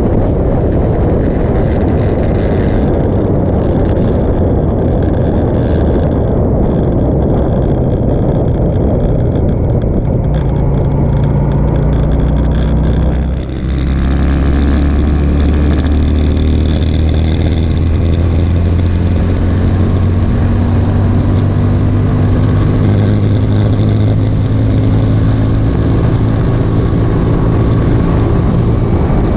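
Motorcycle riding at road speed: heavy wind rush over the onboard microphone, with the engine's steady hum coming through under it. There is a brief dip in level about halfway through.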